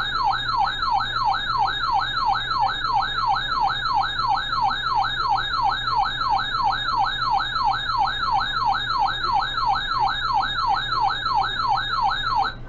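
Emergency alert attention tone broadcast over the radio: a siren-like tone that sweeps quickly down in pitch about three times a second, held steady and then cutting off abruptly near the end, over a low steady hum.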